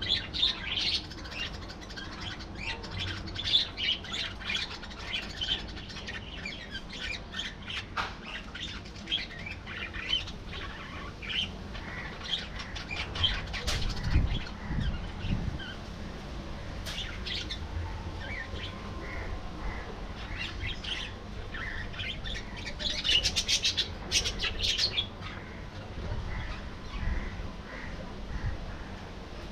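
A flock of budgerigars chattering, with many short overlapping chirps and squawks and a busier burst of calls near the end. A brief low rumble sounds about halfway through.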